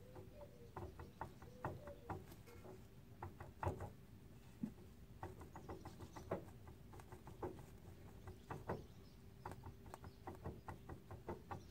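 BMW E39 driveshaft joint twisted back and forth by hand, giving faint, irregular clicks and light knocks a few times a second: the sign of play in the worn joint.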